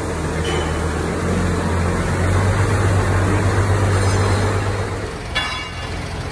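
A vehicle engine running with a steady low drone that swells louder in the middle and eases off about five seconds in, followed by a short hiss.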